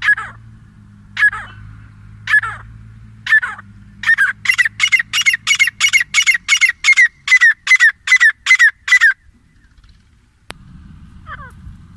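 Grey francolins calling: sharp, ringing notes about once a second, then, about four seconds in, a fast run of loud repeated notes, about four a second, that stops about nine seconds in. A click follows, then one faint call near the end.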